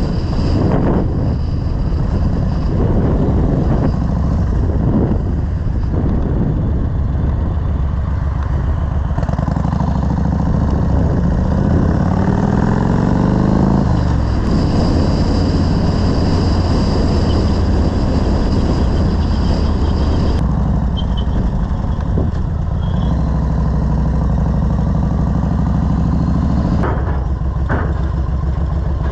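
Yamaha Road Star XV1600's V-twin engine running on the move, with a steady low note. About halfway through the engine note glides in pitch as the revs change.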